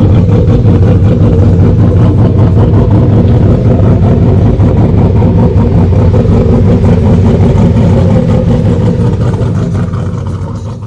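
Turbocharged truck engine running steadily, fitted with a new air filter on the turbo. The sound fades out near the end.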